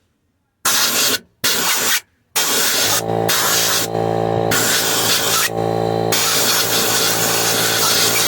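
Compressed air from a blow gun hissing in two short blasts, then a long steady blast that drops out briefly a few times. About three seconds in, a small portable air compressor's motor starts and keeps running with a steady hum under the hiss.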